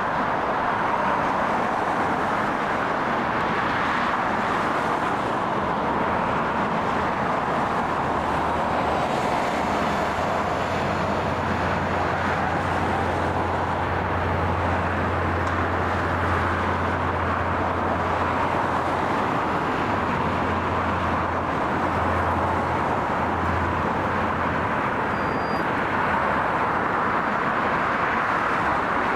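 Aircraft engine noise running steadily, with a low hum that comes in about eight seconds in and fades out a few seconds before the end.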